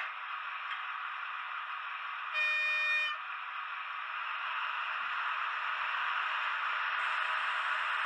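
One short horn blast from the sound decoder of a Märklin H0 model DB class 212 diesel locomotive, about two and a half seconds in. Under it runs a steady hiss that grows a little louder after the middle.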